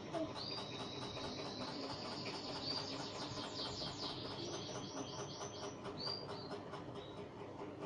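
Bird chirping, with short high chirps and a quick run of repeated arched notes in the middle, over a steady hiss.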